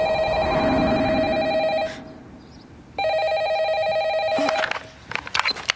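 Telephone ringing twice, each ring lasting just under two seconds with a short pause between, followed by a few light clicks near the end.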